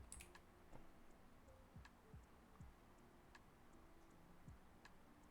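Near silence with a few faint, scattered clicks from computer mouse and keyboard use.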